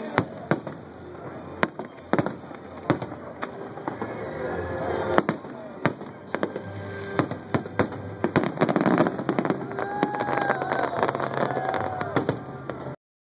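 Aerial fireworks shells bursting overhead in quick succession, sharp bangs over continuous crackling, becoming denser and more crackly in the last few seconds before the sound cuts off abruptly.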